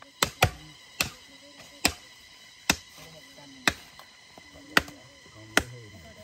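Heavy knife chopping buffalo meat, sharp chops about once a second, the first two close together. Faint voices talk underneath.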